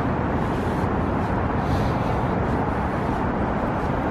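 Steady outdoor street noise: a low rumble of road traffic.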